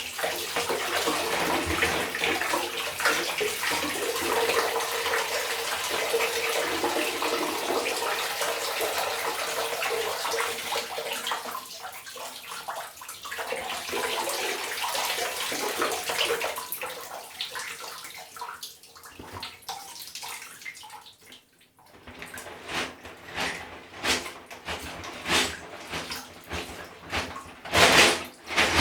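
Water running and splashing in a sink as a plastic container of Lego is rinsed. A steady rush for about ten seconds tapers off, and near the end it gives way to a series of short, irregular splashes and knocks.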